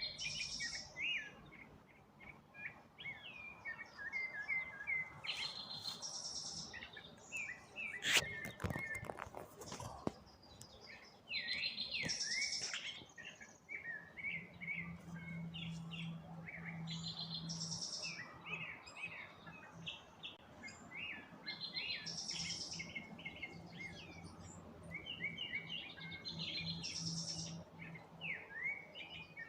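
Several birds singing and chirping, with one bright song phrase coming back about every five seconds over many shorter chirps. A brief clatter of clicks about eight seconds in, and a low steady hum from about halfway through.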